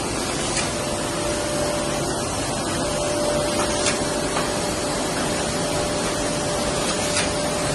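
Heidelberg SORSZ offset press with its drip-off UV curing unit running: a steady rushing machine noise with a steady hum, and a faint tick about every three seconds.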